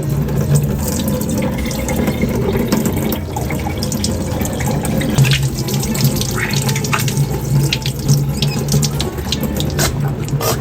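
Water running from a tap into a sink, with scattered light knocks and clicks of handling.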